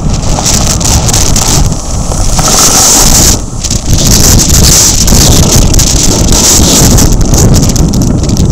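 Strong gale wind buffeting the microphone with a heavy low rumble, over big storm waves breaking and hissing on the shore. The surf hiss swells and fades in waves, dipping briefly about three and a half seconds in.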